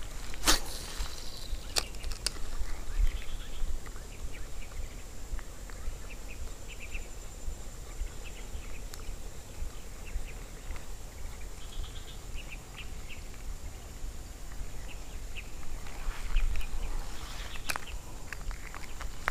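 Outdoor ambience: a steady high insect drone with scattered short chirps and a constant low rumble. A few sharp clicks stand out, about half a second and two seconds in and again near the end.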